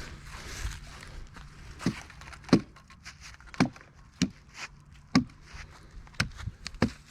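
A hammer striking a wedge driven into the saw cut of a fallen log: about seven sharp knocks, roughly one a second.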